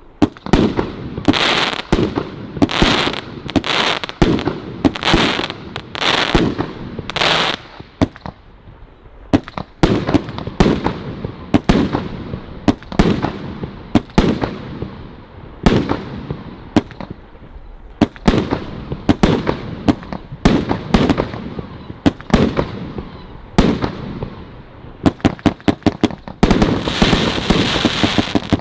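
Nightstar Fireworks' King Kong firework firing a long string of shots, each a sharp bang with a short fading hiss or crackle. The shots come roughly a second apart at first, less regularly in the middle, and in a rapid, dense flurry near the end.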